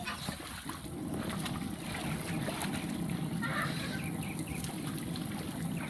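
Young children giggling and squealing while splashing in a shallow inflatable play pool, with water sloshing throughout.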